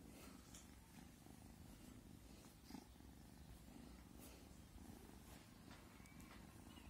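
Kitten purring softly, a low, steady, faint purr, with a few light scratchy clicks as it paws and mouths at a hand.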